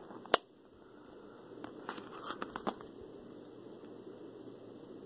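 Small toy packaging being opened and handled by hand: one sharp click just after the start, then a few faint crinkles and taps about two seconds in.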